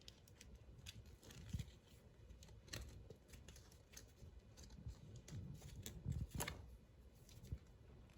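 Faint handling noises of a small plastic toy doll being dressed: scattered light clicks and short rustles of plastic pieces and doll clothes.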